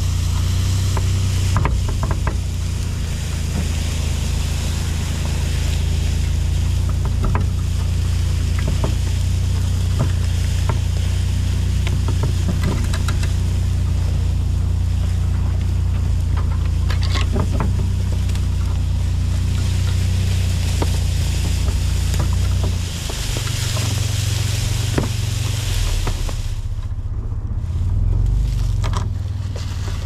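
A vehicle engine running steadily while it tows a chained pine log across leaf-covered ground, with a scraping hiss and scattered clicks and snaps from the chain and the dragging log. About 23 seconds in the engine note changes, and a few seconds later the scraping stops, leaving the engine running alone.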